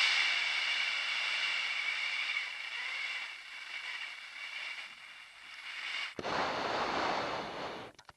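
Breathing through an MBU-12 oxygen mask: a long hissing breath with a faint steady whistle in it, fading over about four seconds, then a second hissing breath starting suddenly about six seconds in.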